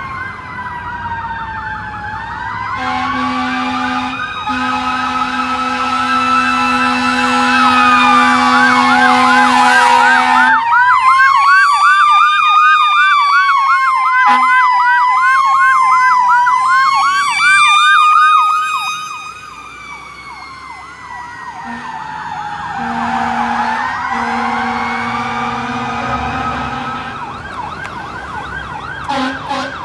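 Fire engine sirens: a slow rising-and-falling wail with a fast yelp over it, together with long steady horn blasts. The sirens are loudest around the middle, drop away briefly, then build again as the second engine comes on.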